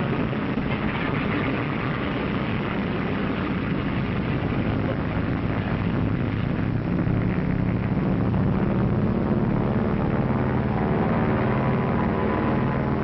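Piston engines of propeller-driven twin-engine bombers running in a steady, dense drone that gets a little louder about seven seconds in.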